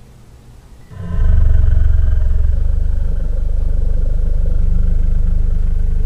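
Jurassic Park dinosaur sound effect: a long, deep growl that comes in suddenly about a second in and holds on, loud and low-pitched.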